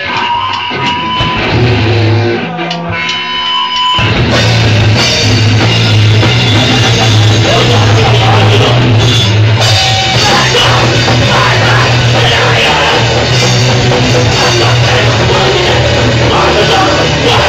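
A live heavy rock band playing very loud. Sparse single guitar notes sound for the first few seconds, then the full band comes in with drums and guitars about four seconds in and keeps going.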